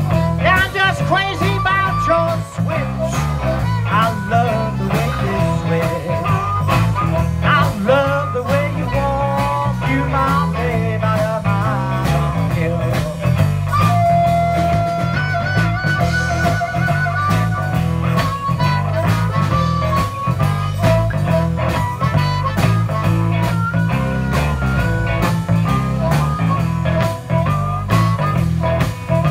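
Live blues band playing an instrumental break: harmonica takes the lead with bending notes over electric guitars and a drum kit keeping a steady beat. The harmonica holds one long note about halfway through.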